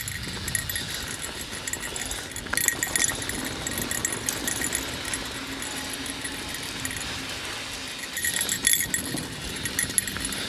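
Mountain bike rolling fast over dirt singletrack: steady tyre and trail noise with bursts of chain and frame rattling over bumps, about two and a half seconds in and again about eight seconds in.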